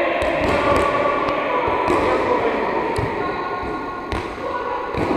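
Soft rubber balls being set with the hands and bouncing on a sports-hall floor: scattered irregular thuds and taps over a steady background din of the hall.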